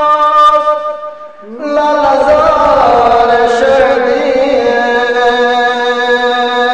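A man singing a devotional qasida in Balti in long, drawn-out notes. One phrase fades out about a second in, and after a brief breath a new phrase slides up into another long held line.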